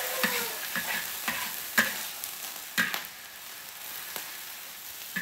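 A metal spatula scraping and clattering against a large wok while chives and egg sizzle in hot oil. There are several sharp strokes in the first three seconds, then mostly the steady sizzle.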